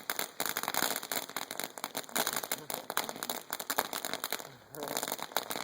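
Ground firework fountain spraying and crackling: a dense, fast run of small pops and crackles, easing briefly about four and a half seconds in.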